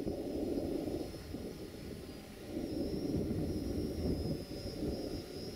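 Drone's propellers and motors buzzing in flight: a steady rushing noise that swells and eases, with a thin high whine held above it.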